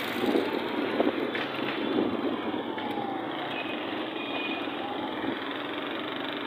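Steady engine and road noise from riding in a vehicle through city traffic, with a couple of brief knocks in the first second and a half.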